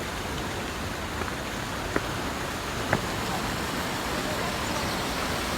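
Creek water rushing steadily over rocks below a small waterfall, with two light ticks about a second apart partway through.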